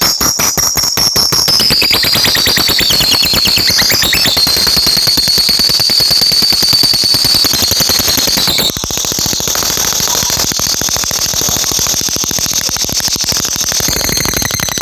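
Lovebird ngekek: a long, very rapid rattling trill of high-pitched chatter, going on without pause apart from a slight dip about nine seconds in.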